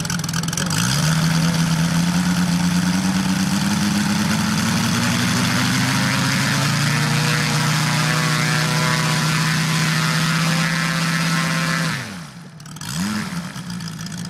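250 cc five-cylinder Moki radial engine of a large-scale RC Boeing Stearman model running on the ground. It picks up revs about a second in and holds a steady high run, then drops sharply near the end, followed by one brief rise and fall in revs.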